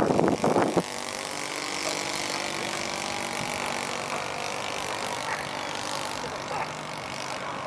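Saito 72 four-stroke glow engine of an RC model airplane droning steadily as it flies overhead, its higher whine slowly rising in pitch. A loud rush fills the first second.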